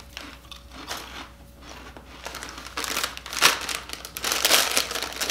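Crunching on rice crisps, then a plastic snack bag of Quaker Rice Crisps crinkling as a hand rummages inside it. The crinkling is louder and busier in the second half.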